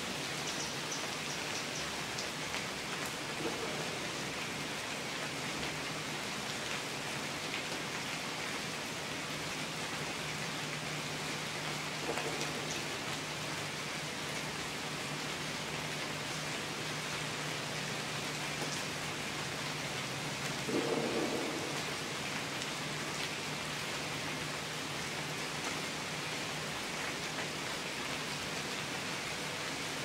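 Steady rain falling on tree foliage, an even hiss. There is a short, louder rumble about two-thirds of the way through, and fainter ones earlier.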